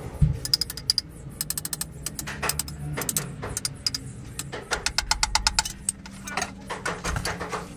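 Workshop tool work on car parts: repeated runs of rapid clicks, each run a dozen or so quick strokes with a slight ringing note, over a steady low hum.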